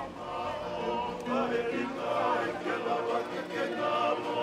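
A choir of several voices singing together, holding long notes.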